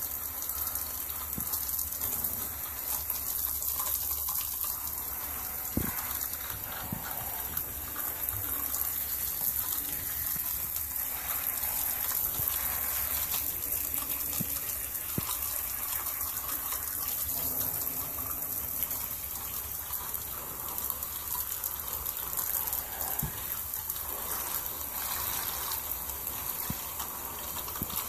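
Shower spray rushing steadily onto wet black patent-leather boots and white socks, splashing onto the tub floor.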